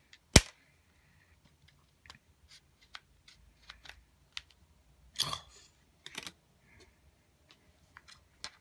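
Plastic clicks and snaps from a Samsung smart TV remote's casing being pried open with plastic cards wedged in the seam: one sharp snap about half a second in, a longer crackling scrape about five seconds in, and small scattered clicks between.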